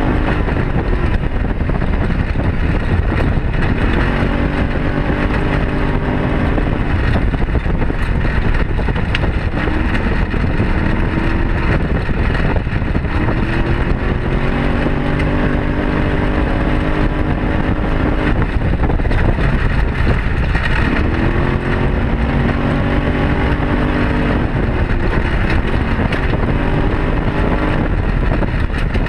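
Arctic Cat Wildcat side-by-side's engine running under load on a rough gravel trail, its pitch rising several times as the throttle is opened, over a steady rumble of wind and the rough ride.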